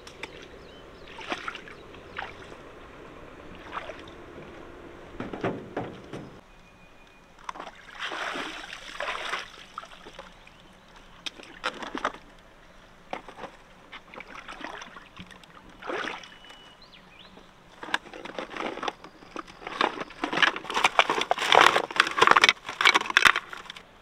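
Shallow water splashing and sloshing as someone wades in rubber boots among the rocks at the water's edge, in scattered irregular splashes, then a quick run of louder splashes in the last few seconds as the hands work in the water.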